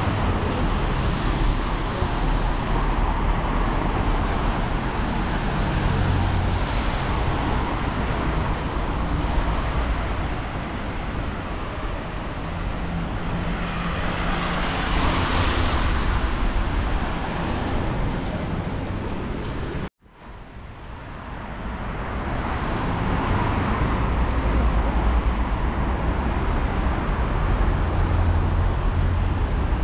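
Street traffic on wet roads: a steady din of cars, with one vehicle passing close about halfway through, its tyre hiss swelling and fading. About two-thirds of the way in the sound cuts out abruptly, then fades back up.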